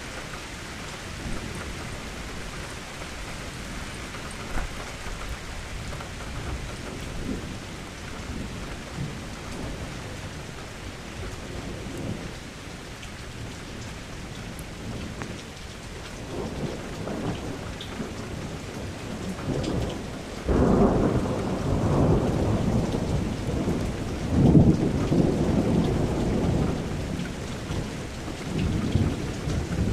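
Thunderstorm: steady rain falling, with thunder rumbling in the second half. The rumble builds from about halfway, breaks in loudly about two-thirds of the way through, peaks a few seconds later and rolls on.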